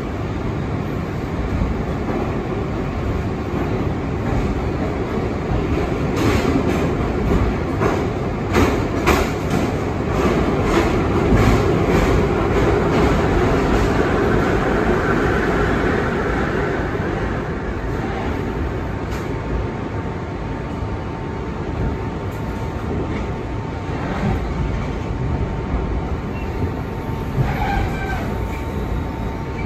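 R62A subway car running at speed, heard from inside: a steady rumble of wheels on rail, with a quick run of clicks as the wheels cross rail joints or switches about six to twelve seconds in. A thin steady whine joins about eighteen seconds in.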